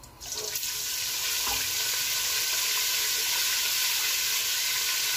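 Food frying in hot oil in a pot, a steady sizzle that starts abruptly just after the start, while a wooden spoon stirs it.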